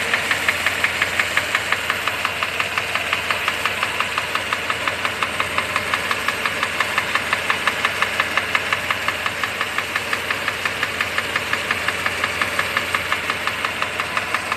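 Mercedes-Benz W126 500 SEC's V8 engine running at a steady speed with a sharp, regular ticking, about five ticks a second, over the engine hum: an unexplained strange noise from the engine.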